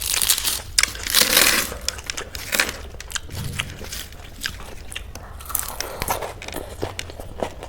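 Close-up eating sounds: crunchy bites and chewing, the loudest crunches in the first second and a half, followed by a steady run of smaller crunches and mouth clicks.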